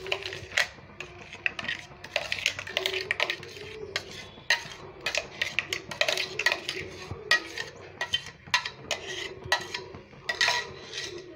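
Wooden spatula scraping and knocking against a stainless steel pan while a thick milk-powder mixture is stirred, in quick, irregular strokes.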